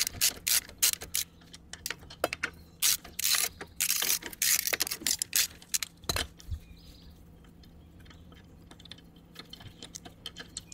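Hand socket ratchet clicking in quick runs as the lug nuts on a trailer wheel are loosened and backed off. The clicking is dense for about six seconds, then thins to scattered fainter clicks.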